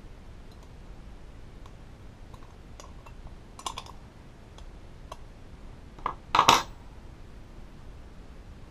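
Light metallic clicks of a small wrench and nut against a chrome-plated steel mirror cup as the retaining nut is worked loose, with two louder clanks about two-thirds of the way through, the second the loudest.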